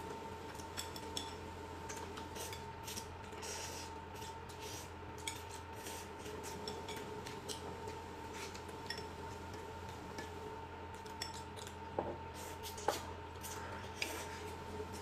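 Chopsticks and dishes clicking and tapping irregularly as food is eaten, with a few sharper clicks near the end, over a faint steady hum.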